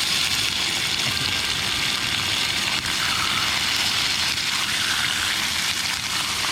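Garlic cloves sizzling in a pan: a steady frying hiss.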